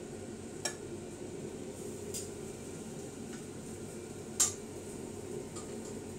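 A few sharp clinks of kitchenware, the loudest about four and a half seconds in, over a steady low hum.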